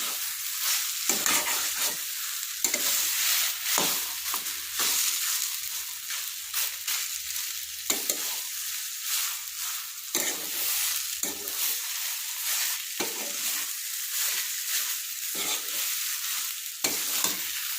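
Grated amla (Indian gooseberry) sizzling as it is roasted dry in a pan over medium-high heat. It is stirred throughout, with uneven scrapes against the pan about once a second.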